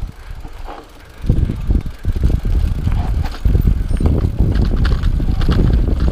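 Rockrider XC50 mountain bike descending a rough dirt trail: tyres rumbling over the ground, with rattles and knocks from the bike. The rumble gets loud about a second in as the speed picks up.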